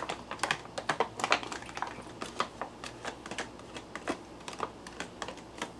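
Foil Mylar freeze-dried food pouch crinkling and crackling in quick, irregular clicks as it is squeezed and shaken to empty the last of the rehydrated steak stir fry onto a plate.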